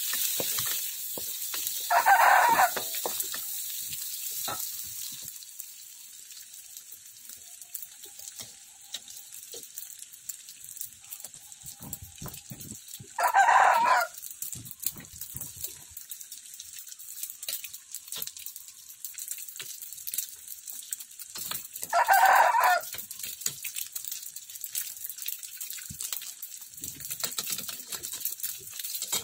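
A chicken calls loudly three times, each call under a second long and about nine or ten seconds apart, over the steady sizzle of noodles frying in a wok and the scraping of a wooden spatula against the metal pan.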